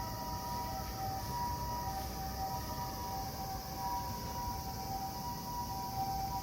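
Siren sounding a steady wail of two tones held together, neither rising nor falling, swelling and fading slightly in strength.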